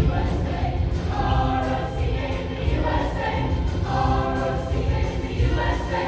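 Mixed show choir singing in harmony over instrumental accompaniment with a strong bass beat, the sung phrases coming in short rhythmic lines.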